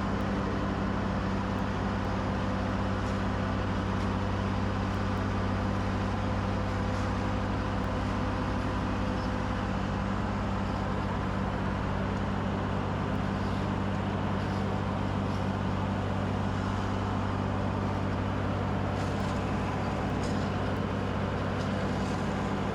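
Skid steer engine running steadily at a constant speed, a low even drone with a few faint clicks over it.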